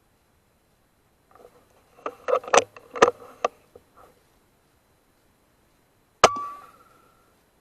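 A run of knocks and clicks from the feeder as a squirrel moves on it, then, about six seconds in, a single sharp crack of an HW110 PCP air rifle shot, followed by a brief ringing tone that fades within a second.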